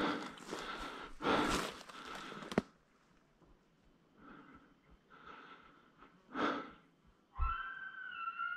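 Heavy breathing of a person hiking a steep slope, in a run of noisy breaths at the start and one more about six seconds in. Near the end a long, steady whistled elk call with several overtones begins.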